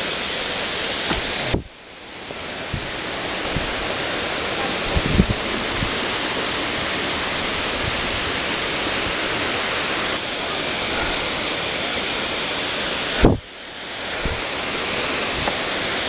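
Steady rushing of a waterfall, an even wash of falling-water noise. The sound drops away suddenly twice, about a second and a half in and again near the end, and swells back up over a second or two each time, with a few faint low knocks.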